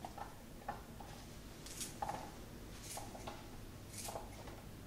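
Kitchen scissors snipping through pieces of bell pepper: several faint, sharp snips, roughly one a second.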